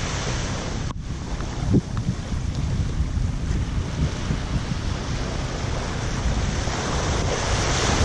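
Wind buffeting the microphone in a steady low rumble, over small waves lapping onto a sandy shore.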